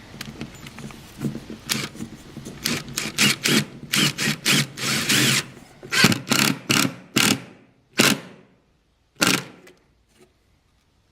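Power drill driving screws in a string of short trigger bursts, about two or three a second, then one last burst near the end.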